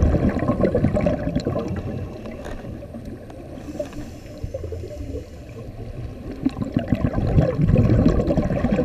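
Underwater bubbling and gurgling from a scuba diver's exhaled breath, heard through the GoPro's waterproof housing. It is loud at the start, dies down in the middle, and swells again near the end.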